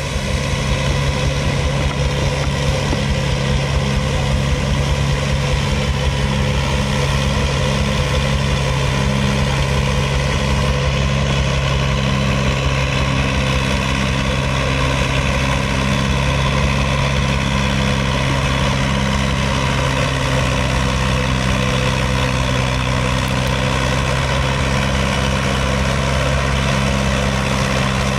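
Vintage tractor engine running steadily under load as it slowly drags a pulling sled, a low, even note that holds without revving.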